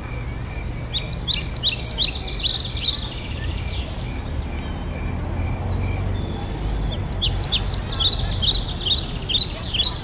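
A songbird chirping in two runs of quick, high chirps, one about a second in and one near the end, each lasting two to three seconds.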